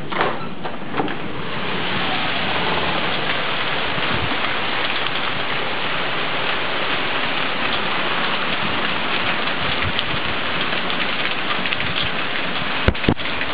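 Heavy thunderstorm rain pouring down in a dense, steady hiss, growing louder about two seconds in. A couple of knocks come at the start and two sharp cracks near the end.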